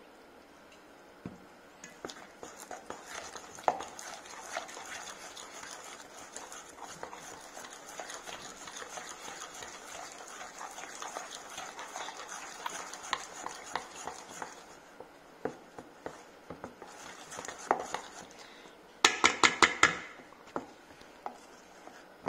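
A spoon stirring thick batter in a stainless steel bowl, scraping and clicking against the metal sides as ginger beer is mixed in to make the batter smooth. Near the end comes a quick run of sharp, loud clinks of the spoon on the bowl.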